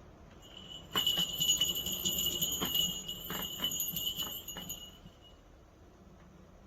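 Small bell jingling in quick, irregular shakes, starting about a second in and dying away around five seconds.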